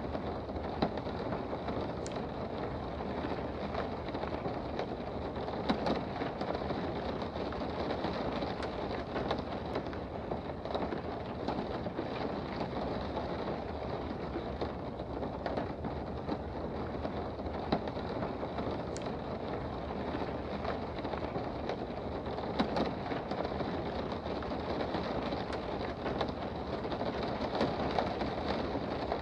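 Steady rain heard from indoors, an even patter with a few sharper ticks of drops scattered through it.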